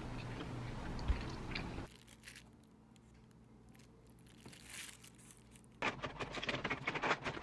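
Thin plastic takeaway bag crinkling and rustling as it is handled, with a few faint ticks in a quieter middle stretch; the crinkling turns suddenly dense and loud about six seconds in.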